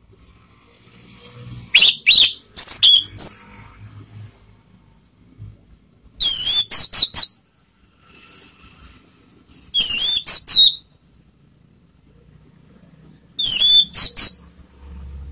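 Orange-headed thrush (anis merah) singing: four short bursts of loud, high whistled notes that glide quickly, each burst about a second long and a few seconds apart.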